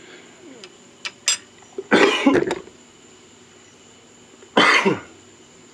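A couple of light, sharp clicks as a small diecast metal car body is set into a drill-press vise. A man then coughs twice, about two seconds in and again near the end.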